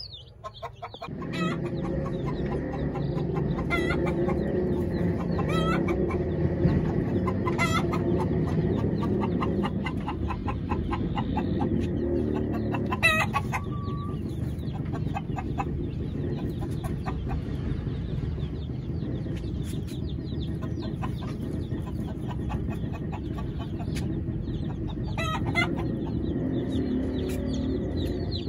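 Chickens clucking continuously, mixed with the high peeping of young chicks.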